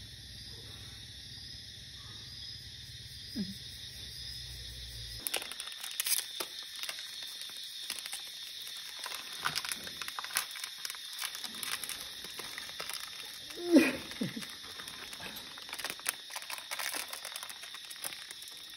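Steady insect chirping over a low hum, cut off suddenly about five seconds in by plastic snack-packet crinkling and rustling with small clicks. About fourteen seconds in comes one short, loud call that rises and falls in pitch.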